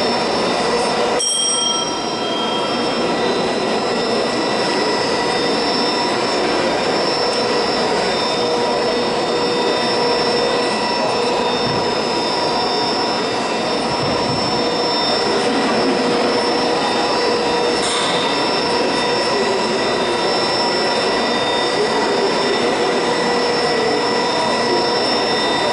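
Colliery winding engine machinery running: a steady, loud mechanical drone with a high whine of several steady tones over it.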